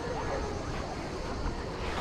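Beach ambience: a steady wash of surf and wind noise, with faint distant voices.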